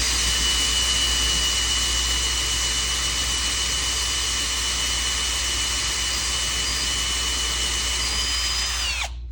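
Electric drill running steadily at full speed, boring into the wall's wooden framing, with a steady high whine; it winds down and stops about nine seconds in.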